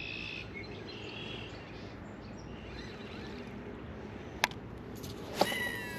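A sharp click, then about a second later a baitcasting reel's spool whining during a cast, the whine falling in pitch as the spool slows. Faint bird chirps come at the start over a steady outdoor background.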